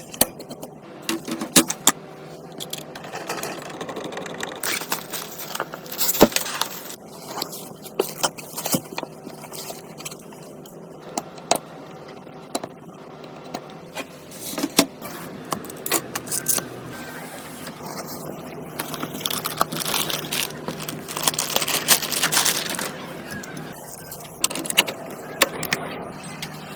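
Hands handling and fitting computer components: irregular clicks, small metallic clinks and scrapes of parts being set in place and fastened.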